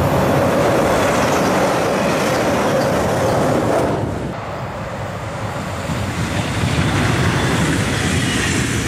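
DB class 425 S-Bahn electric multiple unit passing, its wheels rolling steadily on the rails. A held tone runs under the rolling for about the first four seconds, and then it goes on a little quieter.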